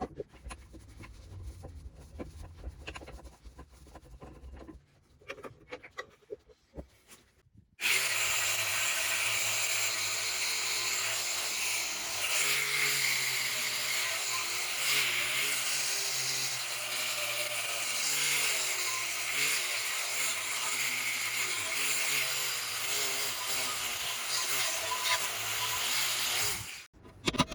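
Quiet small knocks and clicks over a low hum, then about 8 seconds in a handheld power tool starts suddenly and runs loudly under load, its pitch wavering, until it cuts off shortly before the end.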